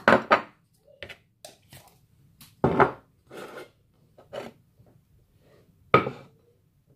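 Plates and a bowl being handled and set down on a wooden board: a series of clinks and knocks, the loudest about three seconds in and again near the end.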